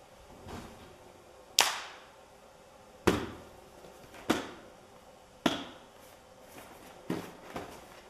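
Six sharp slaps on a small cardboard box, struck with the hands, each with a short ringing tail. They come roughly a second apart, with the last two close together near the end.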